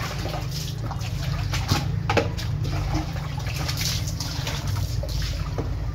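Water splashing and sloshing, with scattered sharp splashes or knocks, the loudest about two seconds in.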